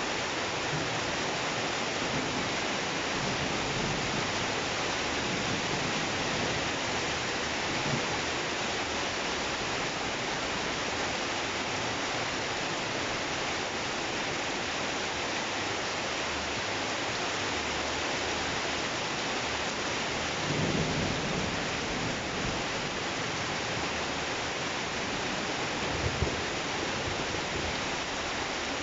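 Steady rain falling during a thunderstorm, with a brief low rumble of thunder about two-thirds of the way in and a short low thud near the end.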